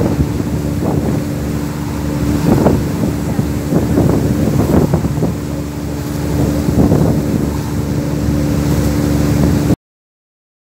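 A boat's engine running steadily with a low hum, with wind on the microphone. The sound cuts off suddenly near the end.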